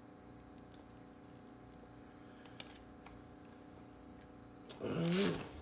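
Quiet room tone with a steady faint hum and a few soft clicks, then a brief voice sound near the end.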